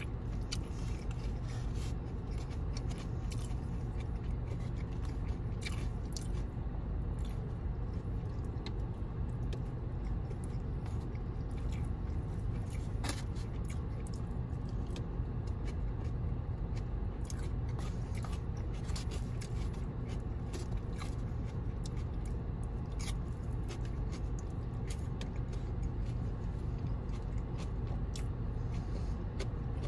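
Close-up chewing and biting of sauced fried chicken and rice, with scattered small clicks and a plastic fork scraping the foam takeout container, over a steady low hum inside a car.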